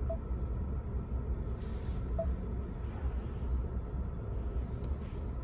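Steady low rumble inside the cab of a 2021 Ford F-150 pickup, with two short faint beeps, one right at the start and one about two seconds in.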